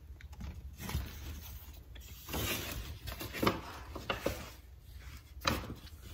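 Paper gift bag being handled and opened: intermittent rustling and crinkling with scattered clicks and knocks.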